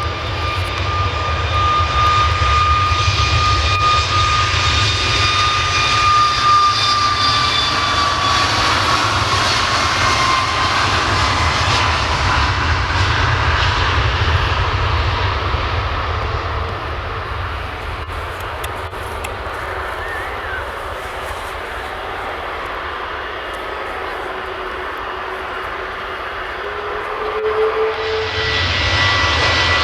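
Boeing 737 jet engines at takeoff power: a steady roar with a high whine that falls in pitch as the aircraft passes. The sound eases off, then swells again near the end.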